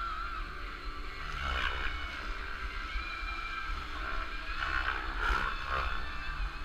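Radio-controlled model airplane flying past, its motor and propeller drone swelling twice and gliding in pitch as it passes, over a steady wind rumble on the microphone.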